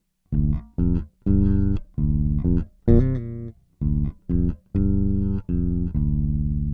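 Electric bass played through a Boss OC-2 Octave pedal, with the two-octaves-down voice mixed about half and half with the dry bass. A riff of short, clipped notes and longer held ones, with a note that slides in pitch about three seconds in.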